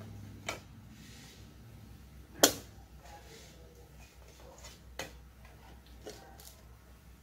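Scattered sharp plastic clicks and light rattles as a CD is taken out of its album packaging and fitted onto a wall-mounted CD player's spindle; the loudest click comes about two and a half seconds in.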